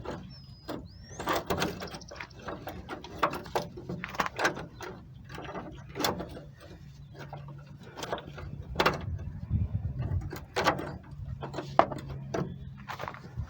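Irregular metal clanks and knocks of wrenches working a seized truck-bed bolt against the frame, the bolt not breaking loose.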